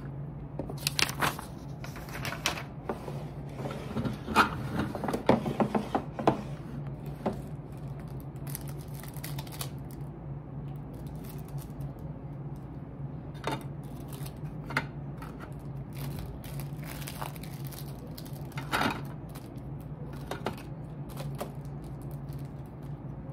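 Steady low hum with scattered clicks, knocks and rustles of small objects being handled, busiest a few seconds in.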